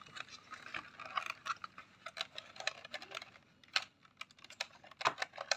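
Irregular small plastic clicks and taps as wiring harnesses are pressed into clips and connectors inside a robot vacuum's plastic chassis, with a couple of sharper clicks near the end.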